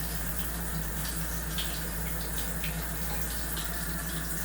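Pot of spaghetti and vegetables bubbling on the stove: a steady watery hiss with scattered small pops, over a steady low hum.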